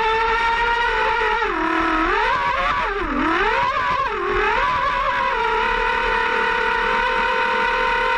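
Twin Lehner 1950/7 brushless electric motors of an HPR115 RC speedboat whining under way, the pitch dipping and climbing back several times between about one and a half and five seconds in as the throttle is eased and reapplied, then holding steady.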